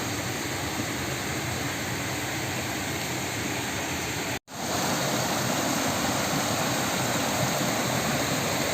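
Water rushing over rocks in a forest stream: a steady, even rush. It drops out for a split second about halfway through, then comes back a little louder.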